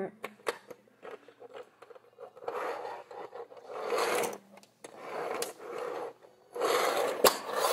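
Plastic Street Sharks toy vehicle being handled and transformed, its parts clicking and the toy rubbing and scraping on a wooden floor in a series of strokes, with a sharp click near the end.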